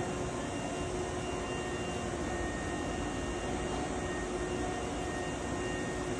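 Steady mechanical noise of a Hankyu electric train, the Kyo-train Garaku: a constant hiss and hum with a few steady whining tones over it, unchanging throughout.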